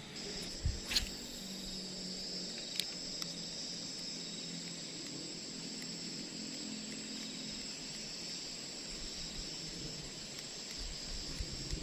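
Steady, high-pitched chorus of insects chirring, with a few sharp clicks in the first three seconds.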